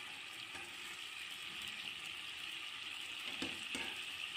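Olive oil with a garlic clove sizzling steadily in a frying pan, the floured chicken breast slices being lifted out. A couple of light knocks near the end.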